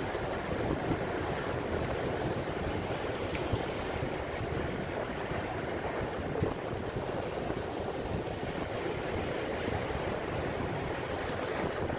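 Surf breaking and washing up a sandy beach in a steady, rushing noise from rough, wind-whipped sea, with wind buffeting the microphone.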